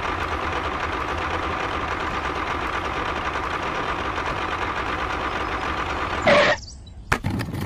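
Engine noise running steadily, a constant hum with a low pulsing beat underneath, while the miniature tractor pulls its trolley. It cuts off after a brief loud burst about six seconds in, and a few sharp clicks follow near the end.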